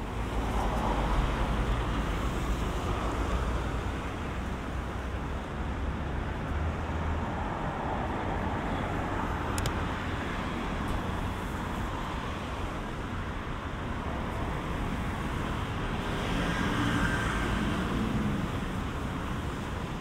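City street traffic on wet roads: vehicles passing with tyres hissing on wet asphalt over a steady background hum, with a deep engine rumble through the first several seconds and a single sharp click about ten seconds in.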